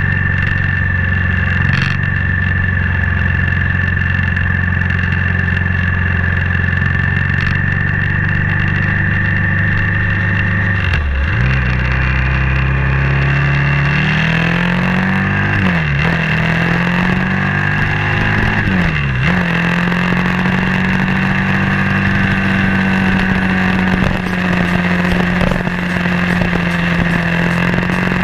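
BMW G650X single-cylinder motorcycle engine running steadily at a low note. About eleven seconds in it picks up and climbs in pitch as the bike accelerates through the gears, with a short dip at each shift. It then settles to a steady higher note while cruising.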